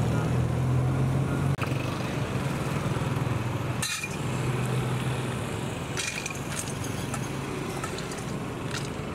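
Peanuts rattling against a steel scale pan as they are scooped by hand, with a few sharp clinks, over a steady low hum.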